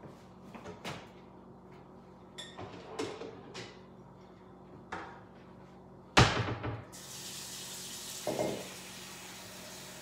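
Light knocks and clatter, a loud thump about six seconds in, then a kitchen tap running steadily, filling a bowl with water, with another knock shortly after.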